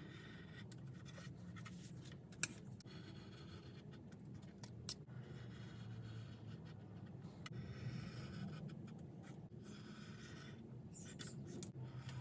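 Light scratching and rubbing of small parts being handled and worked, with scattered small clicks and one sharp click about two and a half seconds in, over a low steady hum.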